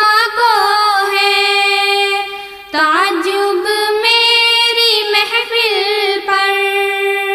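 A high solo voice singing an Urdu welcome song, drawing out long held notes with ornamented turns and no new words. There is a short break for breath about two and a half seconds in.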